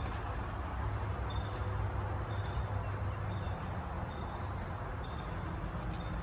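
Steady rushing of a forest stream with a low rumble beneath it, while a bird gives short, high chirps about once a second.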